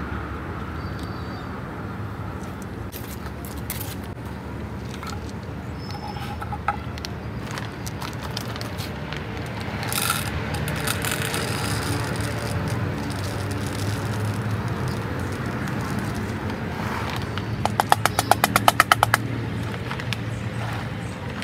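A kitten crunching dry kibble from a bowl, with small scattered clicks, over a steady low background rumble. About ten seconds in, the plastic food bag rustles as more kibble is poured, and near the end comes a short, fast rattle, the loudest sound.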